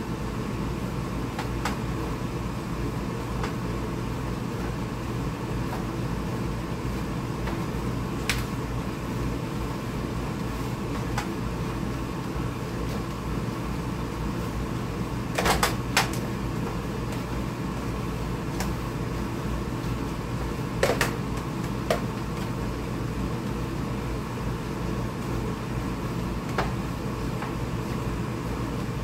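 A steady mechanical hum runs throughout. Over it come a few scattered clicks and knocks as a hand chopper strikes cooked cabbage leaves in a plastic bowl; the loudest is a quick cluster about halfway through.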